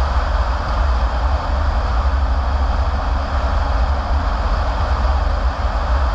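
Car driving steadily: a constant deep rumble with the hiss of tyres on the road over it.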